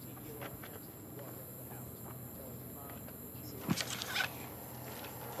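Night-time outdoor ambience: faint insect chirping over a steady low hum, with a few short sharp clicks or rustles about four seconds in.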